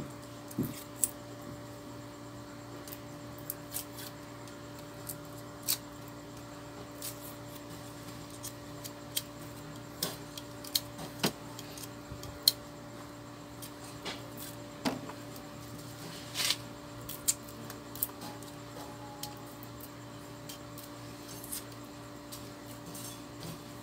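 Small knives clicking and scraping on garlic cloves as they are peeled by hand: scattered, irregular sharp ticks, several a few seconds apart, over a steady low hum.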